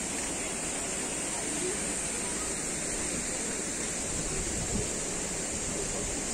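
Steady rush of splashing water from a public fountain, with a steady high hiss over it.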